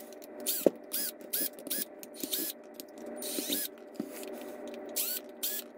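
A cordless drill/driver spinning in a rapid series of short bursts, each a brief rising-and-falling motor whine, as it backs screws out of a plastic tool housing. A couple of sharp clicks from the bit and screws come in between.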